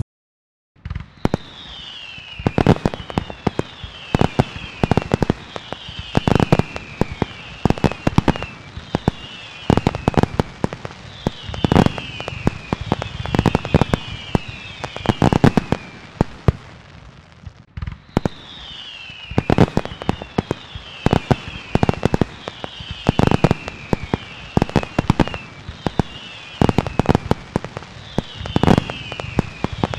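Fireworks display: a dense, irregular run of bangs and crackling starting about a second in, with falling whistles heard again and again through it.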